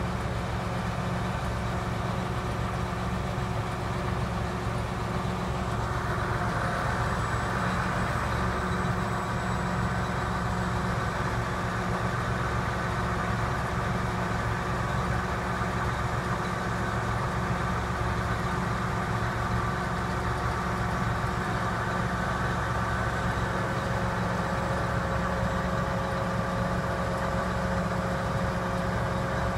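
A John Deere 8310R tractor's 9.0 L six-cylinder diesel idling steadily. A higher whir comes in about six seconds in and holds.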